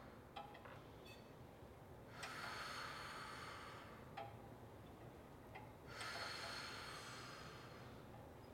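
A woman's long exhalations, twice, about four seconds apart, breathing out on each leg pull of a Pilates reformer exercise, with a few faint clicks between.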